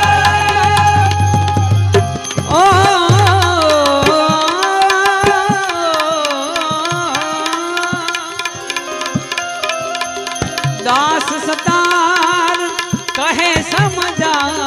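Devotional bhajan music without words: tabla strokes keep the rhythm under a melody. For about the first two seconds the melody holds steady notes, then it changes to a line that slides and bends in pitch.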